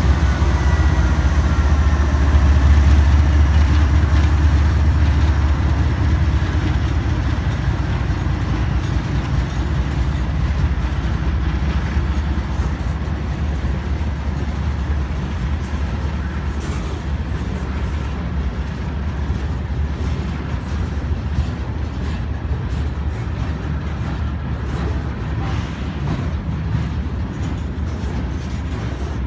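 Norfolk Southern freight train of loaded steel-slab gondola cars rolling past behind its diesel locomotives. A steady heavy low rumble is loudest in the first few seconds as the locomotives pass, then eases as the cars keep rolling by.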